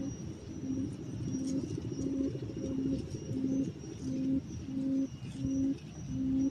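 Decoy quail calling for a trap: a steady series of short, low hooting notes, about one and a half a second, growing louder toward the end. A faint steady high insect whine lies underneath.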